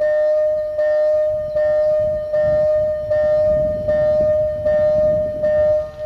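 Background music: a steady bell-like tone re-struck on an even beat about every 0.8 seconds, over a low rumble.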